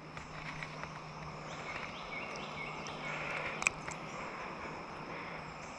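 Quiet outdoor ambience with a steady high drone of insects and a single sharp click about three and a half seconds in.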